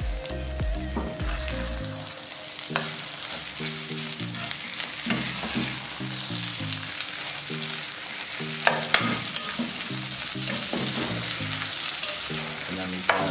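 Eggs with sliced onion, sweet pepper and tomato sizzling steadily in an enamel frying pan, stirred and turned with a metal spatula that scrapes and taps against the pan, with a few sharp clicks about nine seconds in.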